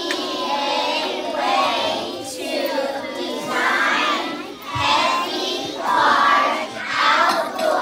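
Many young children's voices at once, loud and overlapping, rising and falling in several swells.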